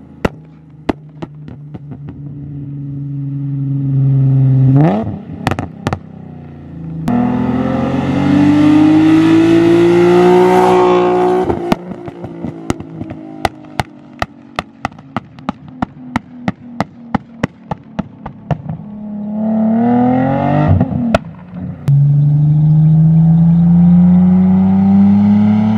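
Nissan 370Z's VQ37 V6 through a loud aftermarket exhaust, revving hard in several full-throttle pulls that rise steeply in pitch. Between the pulls, when the throttle is lifted, comes a rapid string of sharp exhaust pops and crackles.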